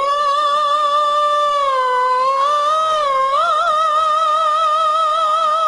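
A single long held musical note with vibrato; its pitch sags slightly and then slides up about three seconds in, where the vibrato widens.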